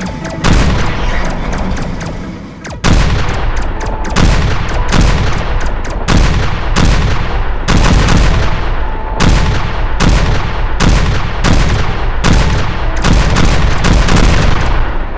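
Battle sound effects: a rapid run of gunfire and explosion booms, lighter shots in the first few seconds, then loud blasts about two a second.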